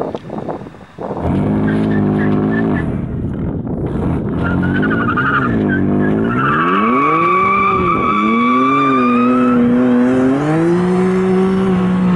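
BMW M4 F82's twin-turbo straight-six (S55) doing a burnout: from about a second in the engine is revved up and down repeatedly, then held high near the end. The rear tyres squeal while spinning in place through the middle.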